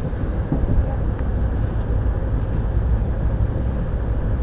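Steady low rumble of an Amtrak passenger train running at speed, heard from inside the car: wheels on the rails and the car's running noise.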